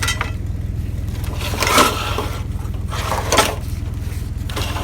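Junk being handled and pulled from a trash pile: a few short scrapes and clatters, the loudest just before two seconds in and another around three and a half seconds, over a steady low rumble.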